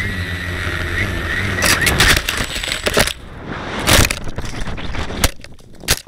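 Onboard-camera audio of a 6S quadcopter coming down: a steady rushing whine of motors and propellers, then from about two seconds in a string of cracks and knocks as it tumbles through tree branches, the loudest about four seconds in. The owner puts the crash down to the ESCs shutting the motors down on low battery voltage.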